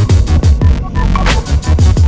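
Electronic dance music with a heavy bass and a fast, driving beat of deep kick drums.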